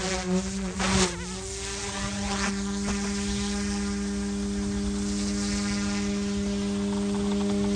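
Small electric RC helicopter running with a steady buzz from its motor and rotors. The pitch wavers in the first second or so, then holds even.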